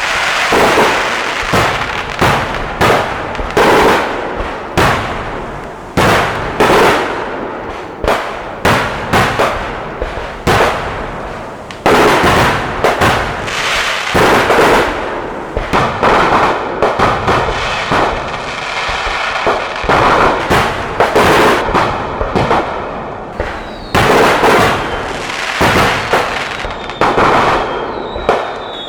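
Fireworks display: loud bangs of shells and crackers going off in quick, irregular succession, often several a second, each followed by a short rumbling tail. A couple of short falling whistles come near the end.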